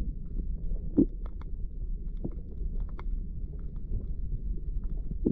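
Muffled rumble of water heard through an underwater camera housing, with scattered faint clicks and taps and one sharper knock about a second in.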